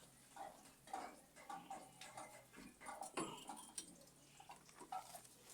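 Faint, light metallic clicks and ticks, irregularly about two a second, from a wrench being worked on a seized suspension bolt freed with penetrating oil.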